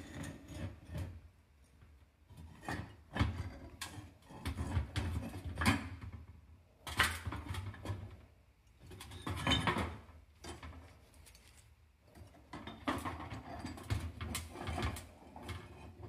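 Metal tongs handling a steel ingot mould and freshly cast brass ingots on a metal pan and firebrick: irregular clinks, knocks and scrapes come in several bunches as the mould is tipped over and an ingot is lifted out.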